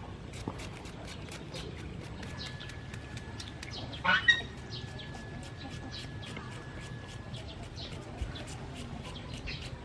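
Quick, regular scraping strokes of a blade shredding a cucumber by hand, about three a second. About four seconds in, a loud call from a farmyard fowl cuts across it.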